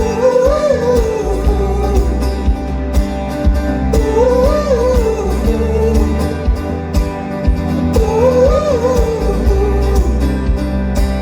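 Folk-rock band playing live: a wordless sung melody repeats the same rising-and-falling phrase three times, about four seconds apart, over guitars and a steady drum beat, as the song's outro.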